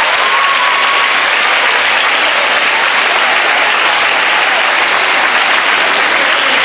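A large crowd of schoolgirls applauding and cheering in a hall, steady and loud, with a shout rising above the clapping about a second in.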